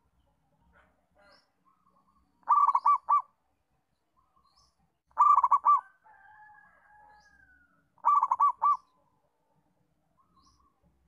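Zebra dove (local perkutut) cooing: three short phrases of rapid staccato notes, about two and a half seconds apart.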